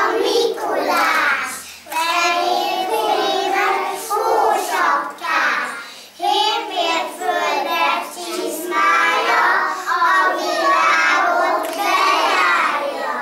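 A group of young kindergarten children singing together in unison.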